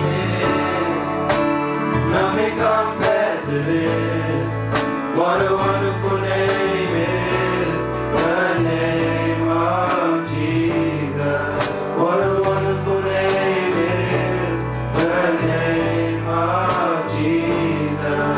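Worship song: a male voice singing a slow melody over guitar and a bass line.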